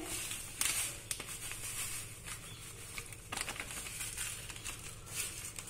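Desiccated coconut being poured by hand into melted condensed milk in a pan: a soft rustling with scattered small crackles and ticks.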